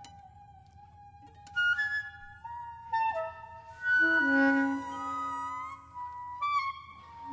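Free-improvised music for flute, saxophone, trombone, guitar and piano/celeste. A long held flute note opens quietly and is joined by struck, ringing notes and overlapping held wind notes. A louder low held note comes in about four seconds in.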